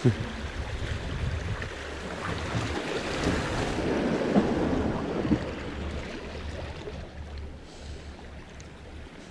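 Small waves washing and breaking over seaside rocks, swelling to a peak about halfway through and then ebbing away, with wind rumbling on the microphone. A single sharp knock right at the start.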